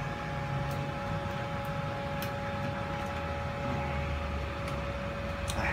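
Steady mechanical hum with two faint steady whining tones over it, and a few light clicks.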